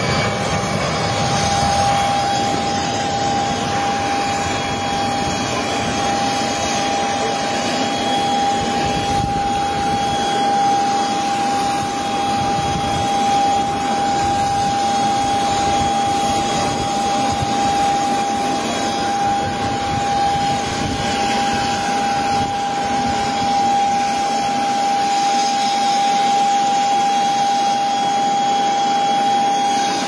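Jet aircraft engine running steadily: a constant high whine over an even rushing noise.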